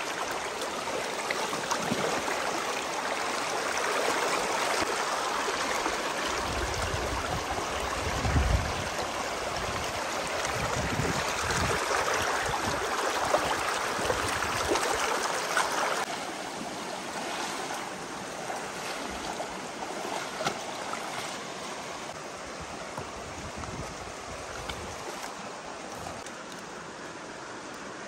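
Shallow rocky stream rushing over stones, with splashing and low thuds as hands work a fish in the water. The rushing drops a little quieter a bit past halfway.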